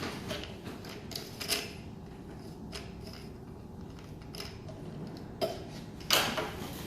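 Plastic parts of a stand fan being handled and fitted together during assembly: scattered clicks and knocks, the loudest about a second and a half in and again near the end.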